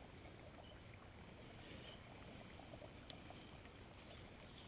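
Near silence: faint steady outdoor background noise with a few tiny clicks.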